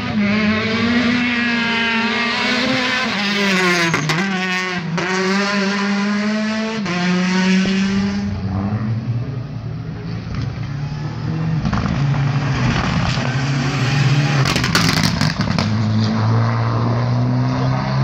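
Rally car engines at high revs passing along the stage. The engine pitch dips and steps with gear changes, and a second car's engine comes in lower about halfway through.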